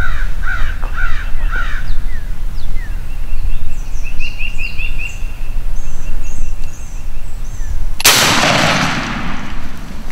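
Birds calling in the woods, then about eight seconds in a single loud shotgun blast whose noise rolls away over about two seconds. This is the shot that misses the turkey gobbler.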